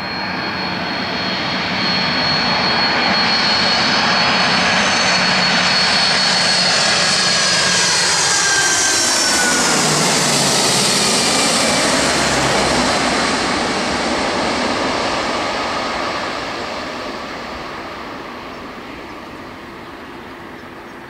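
Boeing 767 jet airliner passing low overhead on landing approach. The engine whine and rush build, the engine tones fall in pitch as it passes about ten seconds in, and the sound then fades away.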